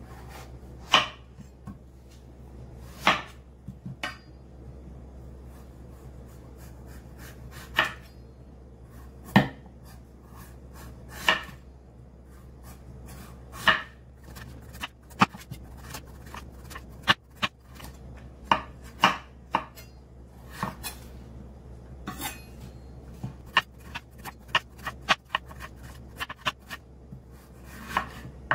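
Kitchen knife cutting through a winter melon and knocking onto a bamboo cutting board: sharp single knocks a couple of seconds apart at first, then coming quicker in the second half as the skin is sliced off.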